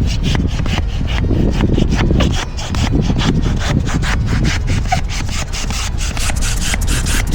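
Large rocket balloon being inflated: a fast, loud run of rasping air strokes, several a second.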